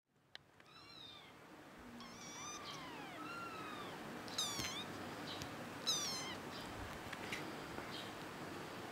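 Young kittens mewing: about six thin, high-pitched mews that arch up and fall away, the loudest two about four and a half and six seconds in, with a few faint clicks near the end.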